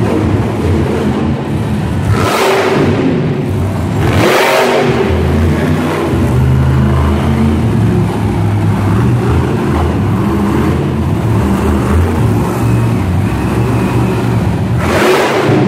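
Grave Digger monster truck's supercharged V8 engine running loud and revving, with three sharp surges of revving about two, four and fifteen seconds in.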